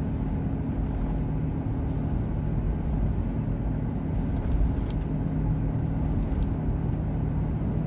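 Steady road and engine noise heard inside the cabin of a moving car, with a low even hum.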